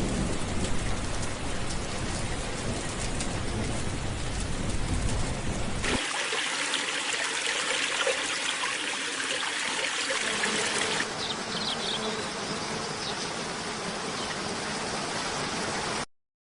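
Running water in three back-to-back clips: a deep, full rush first, then a brighter splashing stream from about six seconds, then a slightly quieter stream with a few faint high chirps from about eleven seconds. The sound cuts off abruptly near the end.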